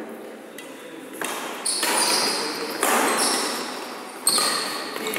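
Badminton rally: shuttlecock struck by rackets several times, with sneakers squeaking on the wooden court floor.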